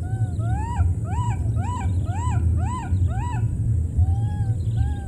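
Baby macaque crying: a run of about seven short calls, each rising and falling in pitch, roughly two a second, with softer, flatter calls near the start and near the end. A steady low rumble runs underneath.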